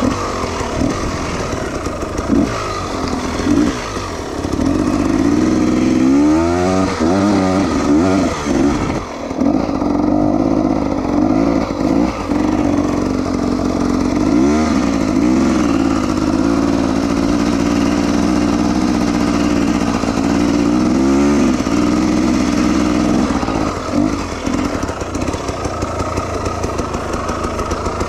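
Dirt bike engine running at a steady throttle, with quick revs rising and falling about six seconds in, briefly around fourteen seconds and again around twenty-one seconds, turning to a pulsing, lower run near the end.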